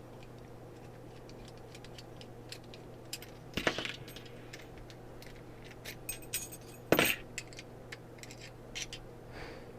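Small metal clicks and clinks of padlock parts and keys being handled, with two louder clinks, about a third and about two-thirds of the way through.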